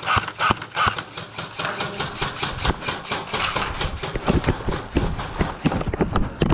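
Quick footsteps of a player moving fast on rough ground, about three to four steps a second.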